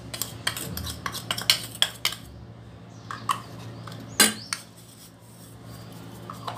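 Kitchen utensils and dishes clinking and tapping as ingredients are handled: a quick run of clinks over the first two seconds, a few more spaced out, and the loudest clink about four seconds in.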